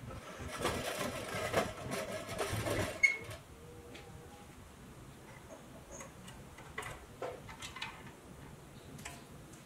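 Pressed-steel Tonka toy trucks rolling across a wooden surface, a wrecker towing a camper pickup: a rattling clatter for about three seconds that ends in a sharp clack, then a few light clicks and taps.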